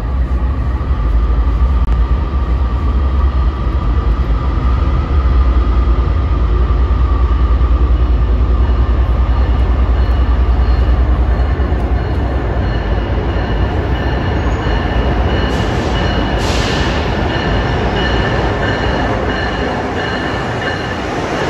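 Amtrak Acela passenger train approaching along a station platform: a deep, steady rumble with high whining tones that grow stronger through the second half as the train draws near.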